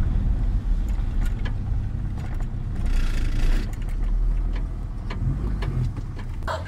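A car's engine and tyres rolling slowly over a sandy dirt road, heard from inside the car as a steady low rumble with scattered small clicks and knocks and a short rise in hiss about three seconds in.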